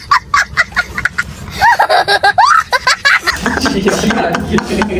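A person laughing in a run of short, high-pitched bursts about two seconds in, among voices talking, with talk taking over near the end.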